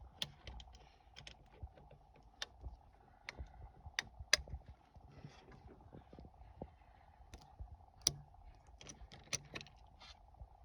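Irregular light clicks and taps of hard parts being handled, a few sharper knocks among them, over a faint steady hum.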